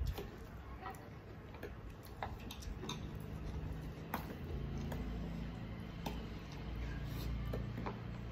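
Irregular light clicks and taps of a metal spoon against steel serving bowls and plates during a meal eaten by hand. A low steady hum comes in about three seconds in.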